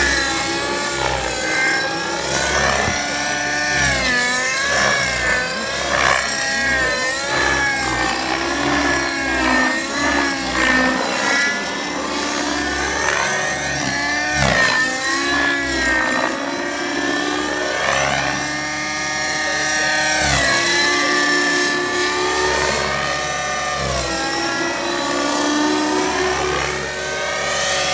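Hirobo SDX radio-controlled helicopter in 3D aerobatic flight: a steady motor-and-rotor whine whose pitch swings up and down every second or two through the manoeuvres.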